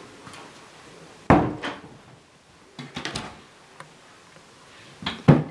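Wooden kitchen cabinet doors being opened and knocked shut: one sharp knock about a second in, a few lighter ones around the middle, and two more near the end.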